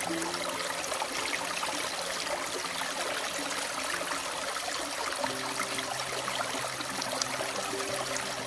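A steady rush of running water, with slow background music's held low notes underneath; the notes change about five seconds in.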